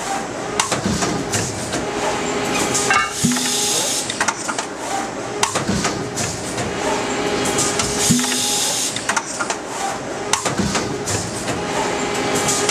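Injection moulding machine running automatic cycles of about 4.8 seconds. Over a steady hum and hiss, a short low machine tone comes back about every two and a half seconds, twice per cycle.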